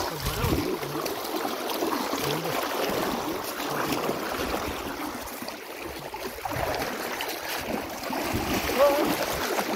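Shallow river water rushing and splashing around the legs of people wading against the current, with faint voices now and then.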